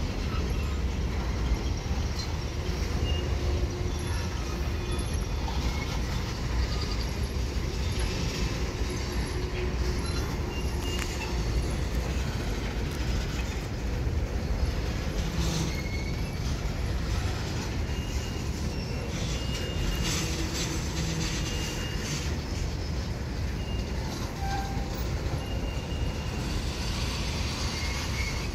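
CSX freight train's tank cars and covered hoppers rolling past on the rails: a steady low rumble of the wheels, broken by short, scattered high-pitched wheel squeals.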